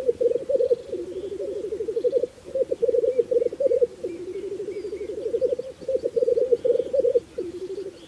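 Male black grouse rookooing, the bubbling, cooing display song of the lek: a continuous low rolling bubbling in phrases a second or two long, broken by several short pauses. Faint higher chirps of other birds sound above it.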